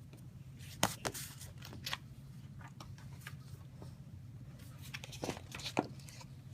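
Pages of a picture book being handled and turned, a few short paper rustles and clicks over a steady low hum.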